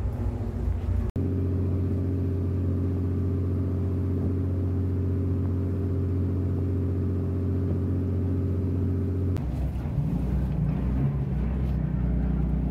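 Bumboat engine running steadily with a low, even drone. It cuts in abruptly about a second in, and after about nine seconds gives way to a different, lower engine note that rises briefly.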